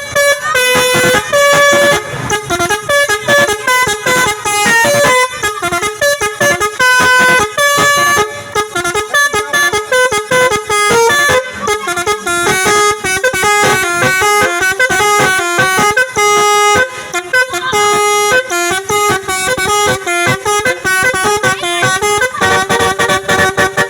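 Tour bus's Basuri telolet horn playing a tune: a fast, unbroken string of loud, high-pitched horn notes, several tones sounding together and changing pitch every fraction of a second.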